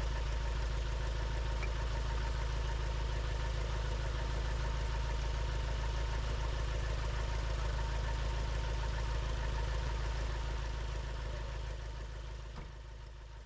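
Light aircraft's piston engine and propeller running steadily on the ground, fading away over the last few seconds.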